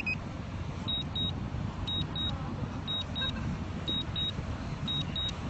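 Drone remote controller's low-battery warning: a pair of short high beeps once a second, the drone's battery running down in the cold. Under it, a steady low rumble.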